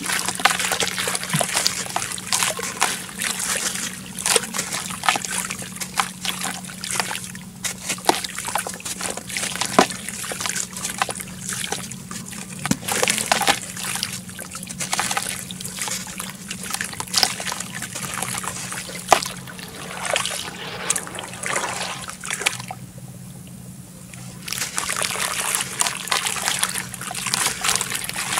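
A chunk of red dirt crumbled by hand into a tub of muddy water: wet clumps and grit dropping and splashing, with steady trickling and sloshing. It goes briefly quieter about three quarters of the way through.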